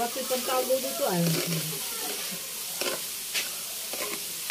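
Pork and sausage slices sizzling on an electric grill plate while metal tongs stir and scrape through them, with a few sharp clicks of the tongs in the second half.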